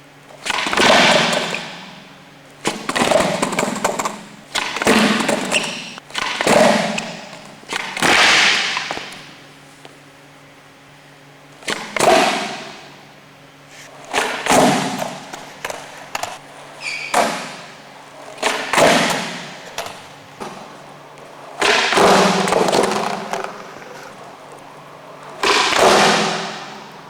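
Skateboards hitting the pavement again and again during kickflip attempts: about a dozen sudden board impacts, some in quick pairs, each trailing off over a second or two.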